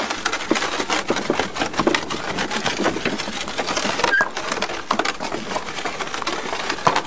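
Continuous rapid, irregular clattering: many small wooden-sounding knocks and rattles.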